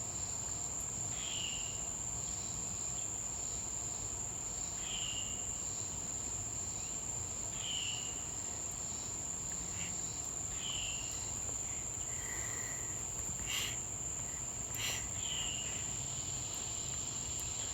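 Steady high-pitched insect chorus of cicadas and crickets, with a bird's short, slurred chirp repeating about every three seconds.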